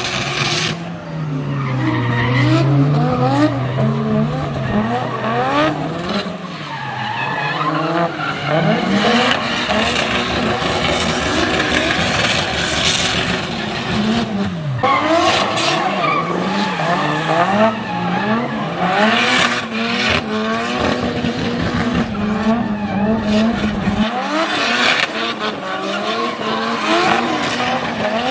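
Nissan Silvia drift cars at full throttle, engine revs rising and falling constantly as they slide, with tyres skidding and squealing on wet tarmac.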